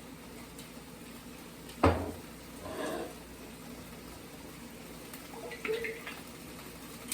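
Cookware being handled at the stove: one sharp knock about two seconds in, then softer clatter and a few light clinks later, over a faint steady background.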